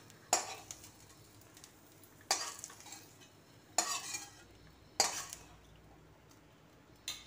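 Flat steel spatula scraping across the inside of a metal kadhai as fried paneer cubes are scooped out: five short scrapes, each a second or more apart.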